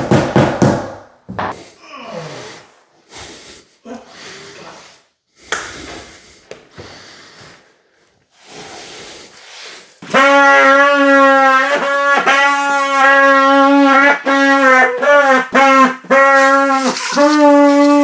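Scattered knocks and handling clicks, then from about halfway in a loud electric power-tool motor whining at one steady pitch. Its pitch sags and recovers several times, as under load or on the trigger.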